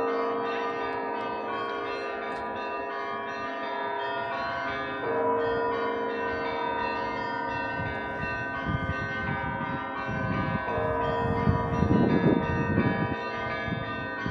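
Russian Orthodox church bells ringing: several bells sound together in a sustained peal, with a lower bell struck about every five seconds. A low irregular rumble joins over the second half.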